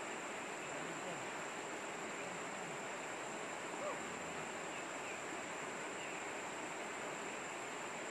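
River rapids rushing steadily over rocks.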